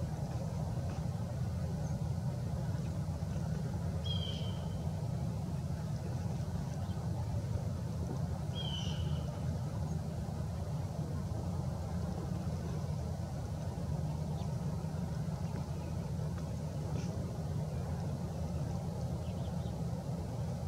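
A steady low engine hum, like a vehicle running, with two short high chirps about four and nine seconds in.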